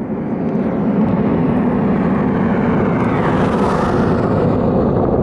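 The rumble of a Falcon 9 v1.1 rocket's nine Merlin 1D engines heard from a distance as it climbs after liftoff. It swells over the first second, then holds loud and steady.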